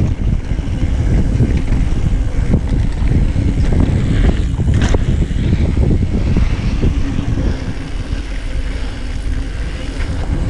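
Mountain bike descending a dirt singletrack: wind buffeting the microphone and tyres rumbling over the packed dirt, with steady knocks and rattles from the bike over bumps.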